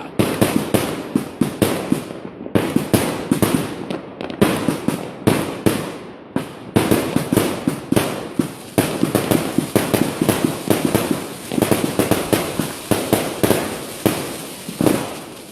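A large single-box consumer fireworks cake firing a rapid run of sharp bangs and crackles, several a second, with a few short gaps.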